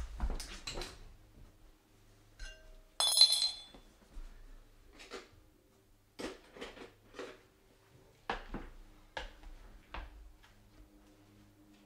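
Irregular knocks and taps from objects being handled, with one sharp ringing clink about three seconds in, the loudest sound here.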